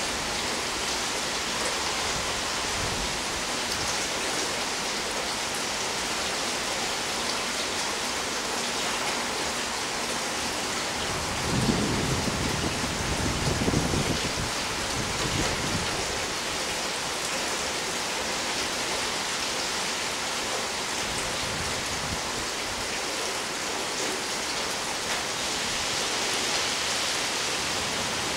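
Steady rain falling, with a low rumble of thunder about eleven seconds in that swells twice and dies away over about five seconds.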